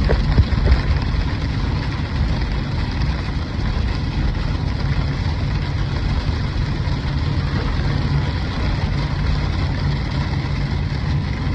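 Hail coming down hard: a steady, dense rush of noise with a low rumble beneath it.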